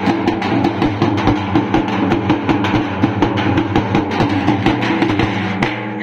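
A group of large drums beaten with sticks, playing a fast, steady rhythm of many strikes a second.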